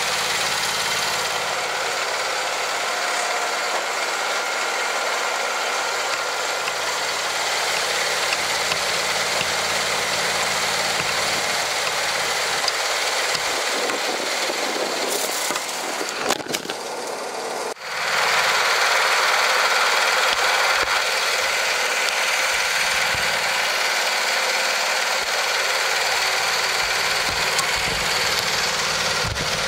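John Deere LA130 lawn tractor's engine idling steadily on its first run after sitting outside all winter, running well on non-ethanol gas. Wind noise on the microphone throughout; a little past halfway, a few knocks and a brief drop in the sound.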